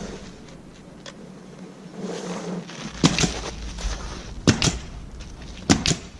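Three pairs of sharp knocks, about a second and a quarter apart, over a low rumble that comes in partway through.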